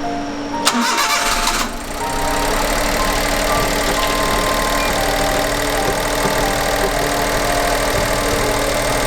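Honda Vamos Hobio's three-cylinder engine cranked by the starter, catching about two seconds in, then idling steadily. This is the first start after the manual transmission was rebuilt with new case bearings.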